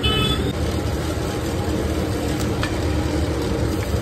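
Steady background din of a busy street-food stall, a low rumble with a few faint clicks, and a brief ringing note at the very start.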